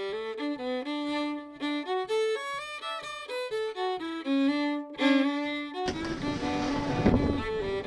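Instrumental background music: a melody of stepping notes over a steady beat. About six seconds in, a loud rushing noise joins it for the last two seconds.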